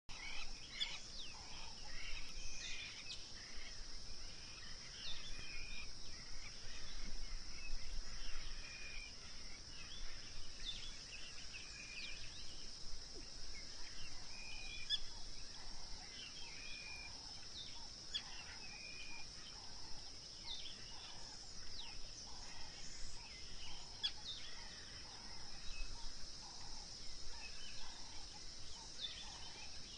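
Steady high-pitched insect drone with assorted bird calls over it: short repeated whistles and quick chirps. Through the second half a run of evenly spaced lower calls repeats about once a second.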